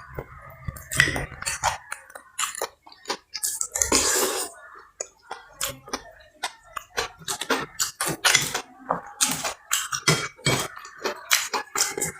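Close-up eating sounds: a spoon clinking and scraping on a plate, with mouth noises of chewing and slurping spicy lontong sayur and crackers, in quick irregular clicks. A short breathy burst about four seconds in.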